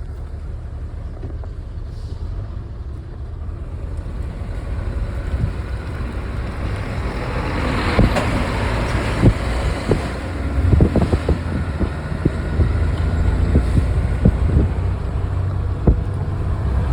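Steady low rumble of a vehicle travelling on the road, with strong wind buffeting the microphone; the gusts grow louder about halfway through, with repeated sharp thumps of wind.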